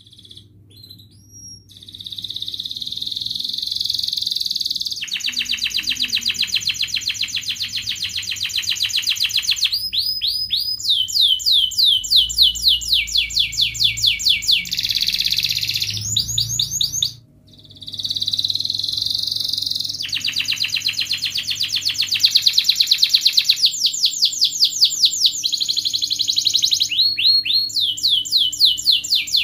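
Domestic canary singing a long, continuous song. It starts about two seconds in and alternates rapid trills with runs of slower, falling notes, breaking off briefly a little past halfway.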